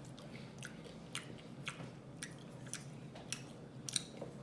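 A person chewing a french fry dipped in country gravy close to the microphone, with soft mouth clicks about twice a second.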